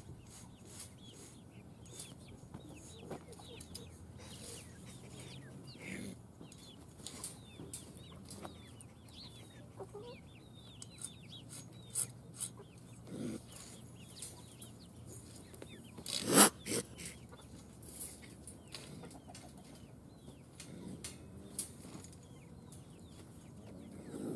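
Farmyard chickens clucking and calling, with scattered light clicks and knocks and one loud clatter about sixteen seconds in.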